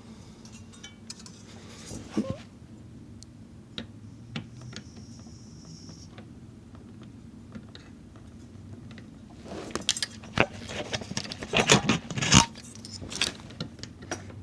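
Small metal parts clicking and clinking as a CPU air cooler's mounting hardware is handled and screwed down with a screwdriver: scattered clicks at first, then a dense run of clinks and knocks in the last few seconds.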